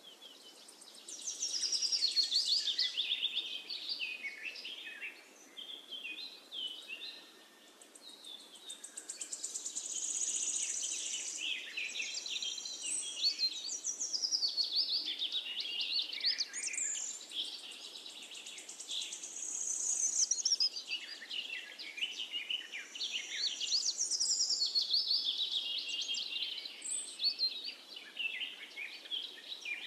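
Birds chirping and warbling: a dense, continuous run of quick high chirps and trills from several birds, easing off briefly about seven seconds in.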